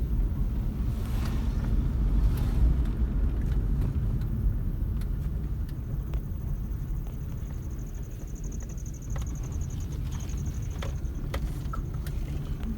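Steady low rumble of a car driving, heard from inside the car. A thin, high, steady buzz joins about halfway through, with a few faint clicks.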